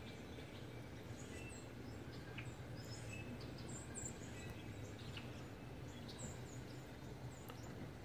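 Small songbirds giving scattered short, high chirps over a steady low background rumble.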